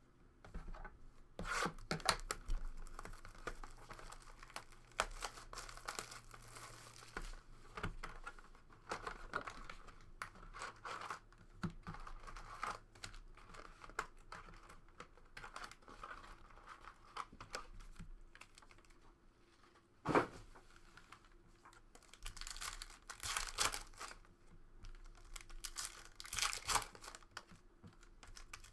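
Plastic wrapping being torn and crinkled as a sealed box of trading cards and its packs are opened, in irregular rustling bursts, with one sharp snap about twenty seconds in.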